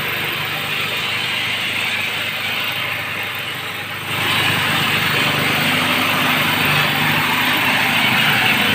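Well-drilling rig running steadily, its engine hum under a dense mechanical noise, growing louder about four seconds in.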